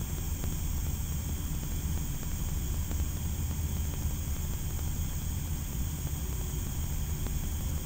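Steady airliner cabin noise, a low hum with an even hiss over it, heard from inside the cabin while the aircraft is being de-iced.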